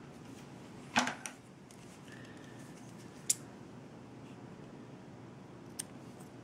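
Small scissors trimming the cotton wick tails on a rebuildable atomizer's deck: a few short, sharp clicks over faint room hiss, the loudest about a second in, another past the middle and a fainter one near the end.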